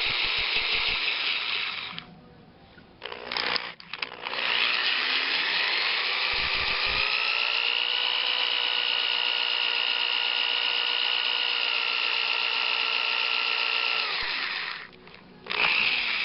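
Hand-held electric drill spinning a length of wire held in a pin vise, twisting it straight. The drill runs, stops about two seconds in, starts again in a few short bursts, then rises in pitch to a steady whine that winds down and stops near the end, with a brief restart at the very end.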